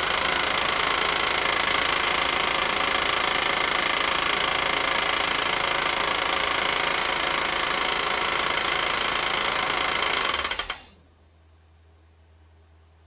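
1988 Mercedes 560 SEC's V8 engine running with a loud, rapid knocking, a sign of an internal engine fault serious enough that it has to be switched off. The engine is shut off about eleven seconds in and the sound stops suddenly, leaving only faint background.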